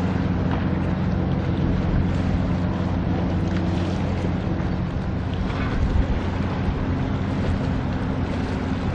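Steady low drone of an approaching car ferry's diesel engines, with wind on the microphone. A brief higher sound cuts in just past the middle.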